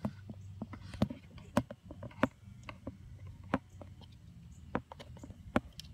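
Irregular sharp plastic clicks and light handling noise as hands work among car wiring, twisting open the base of a screw-together red plastic wire connector.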